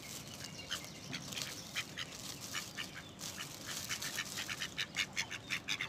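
Ducks making a quick series of short calls, the calls coming faster and more regularly in the second half.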